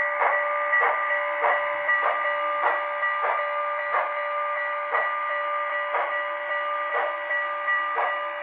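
Sound-decoder steam exhaust chuffs from an HO scale model of CN steam locomotive 6060, slowing from about two a second to about one a second as the engine eases down, over a steady whine.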